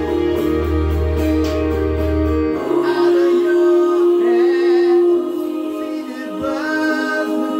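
A man singing into a handheld microphone over backing music. The deep bass drops out about two and a half seconds in, and he holds one long note for about two seconds.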